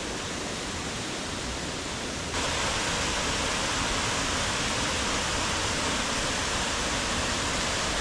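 Steady rush of water cascading over tiered limestone falls into pools, growing louder and brighter about two seconds in.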